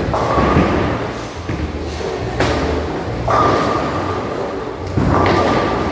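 Ten-pin bowling alley sounds: bowling balls thudding onto the lanes and pins crashing. There are several sharp impacts a second or so apart, each followed by a brief clatter.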